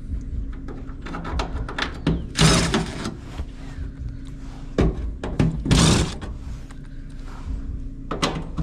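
Clothes dryer being taken apart by hand: scattered clicks and thunks of its sheet-metal cabinet and parts being handled, with two louder scraping rushes about two and a half and six seconds in.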